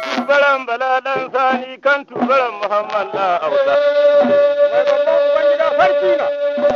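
Hausa song: a voice sings a wavering, ornamented melody, then settles into a long steady held note from about halfway through.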